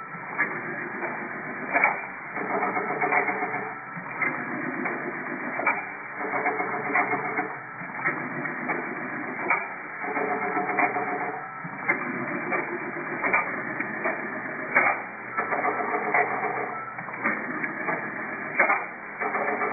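Automatic wire-cutting, stripping and double-end terminal crimping machine running, with motor whirr and sharp clacks from its crimp presses. The clatter repeats in a cycle about every four seconds.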